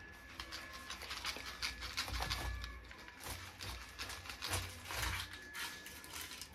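Knife cutting into a whole pineapple: a run of irregular crunching cuts and knocks, several a second with short pauses.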